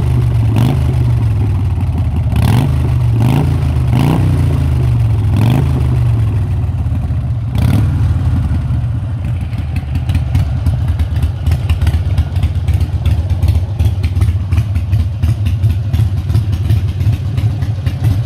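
Harley-Davidson Iron 883's air-cooled V-twin running through a Vance & Hines Short Shots loud aftermarket exhaust. The throttle is blipped about five times in the first six seconds and once more near eight seconds, then the engine settles to a steady idle with a fast, pulsing beat.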